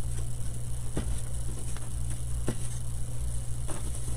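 Steady low electrical hum with a few light taps, about four of them, as small wooden craft cutouts are handled and set down on a paper-covered table.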